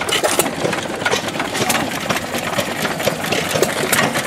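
Several antique flywheel stationary engines running at once, their exhaust pops and mechanical clicks overlapping in an uneven rhythm.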